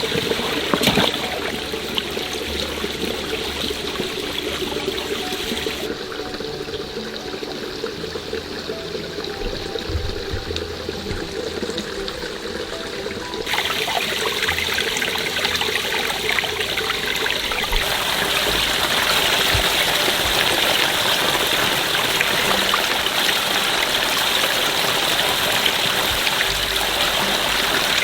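Running water flowing steadily, growing louder about halfway through.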